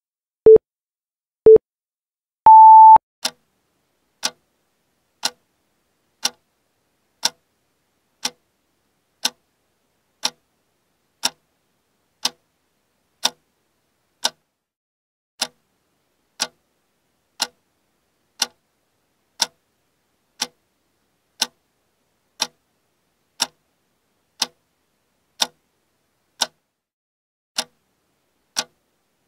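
Countdown-timer sound effect: two short beeps about a second apart, then a longer, higher beep, followed by a clock ticking once a second.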